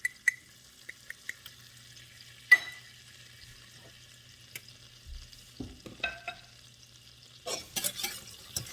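Butter sizzling faintly in a pot as flour is stirred in to make a roux, with light taps of the utensil on the pot. A sharp knock on the pot comes about two and a half seconds in, and a run of clinks and scrapes near the end.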